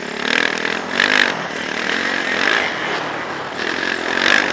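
Yamaha motocross bike engine running hard under the rider, its pitch rising and falling as the throttle is worked and gears change, heard from a helmet-mounted camera.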